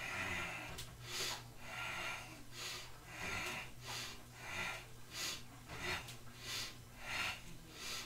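A man breathing hard and rhythmically while bench-pressing a barbell: quick hissing breaths in and out, about three every two seconds, keeping time with the reps.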